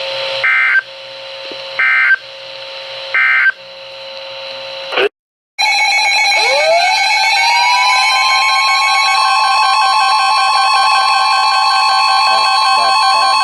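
Three short bursts of warbling EAS/SAME data tones about a second and a half apart: the end-of-message signal closing a NOAA Weather Radio warning. After a brief cut to silence, a loud alarm tone starts, one pitch sweeping up over about two seconds and then holding steady over other sustained tones.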